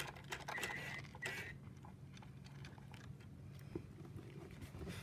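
Clicks and rattles of a Lego treat dispenser being pawed by a cat, with two brief high squeaks in the first second and a half. Then the soft, irregular crunching of the cat chewing a dry treat.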